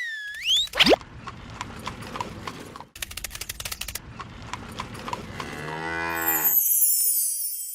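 A cow mooing once, a low call of about a second starting some five and a half seconds in. Before it come whistle-like pitch glides and crackly clicking, and after it a shimmering high chime-like sweep.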